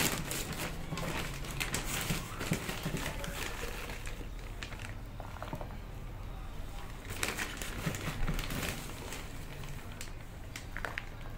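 A plastic bag of potting soil rustling and crinkling while soil is scooped out of it with a small plastic scoop, with soft scrapes and pattering of soil into a plastic planter.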